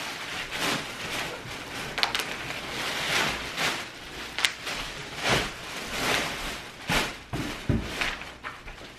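Plastic packaging and a cardboard box rustling and crinkling in irregular bursts as items are handled and unpacked, with a few sharp snaps among them.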